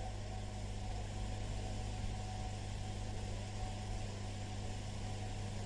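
Steady low electrical hum with even background hiss: the recording's noise floor, with no other sound.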